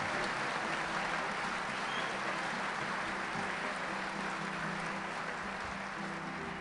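Audience applauding steadily, slowly dying down near the end.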